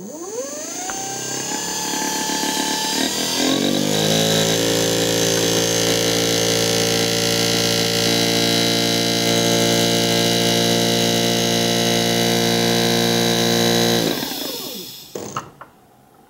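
A 12 V brushless DC refrigerator compressor (HB075Z12) starts with a click and spins up, its whine rising in pitch over about four seconds. It then runs steadily under load while blowing up a balloon, and cuts off near the end, followed by a couple of brief sounds.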